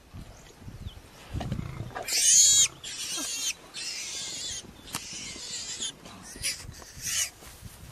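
Lions growling low over a kill, then a pig squealing shrilly while being eaten alive: one loud squeal about two seconds in, harsher squeals for the next two seconds, and short ones near the end.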